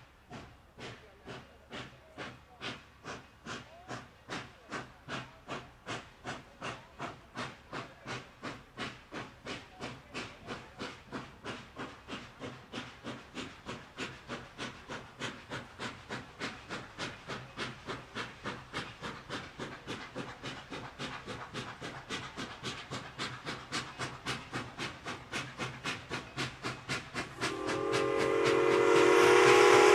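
Steam locomotive, a 0-6-0 steam switcher, working with a steady rhythm of exhaust chuffs, about two to three a second, growing louder as it comes closer. Near the end its steam whistle starts blowing loudly and holds.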